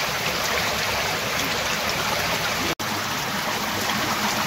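Small, shallow stream rushing and splashing over rocks and pebbles: a steady running-water sound, with a momentary cut-out about three seconds in.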